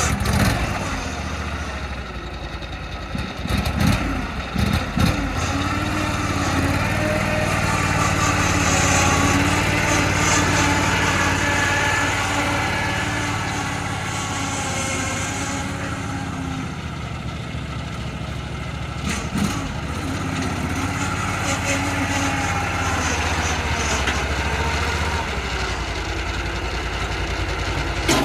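Small engine of a mini skid steer loader running steadily, with a few knocks about four seconds in and its sound swelling and easing as the machine works, then settling to an even idle near the end.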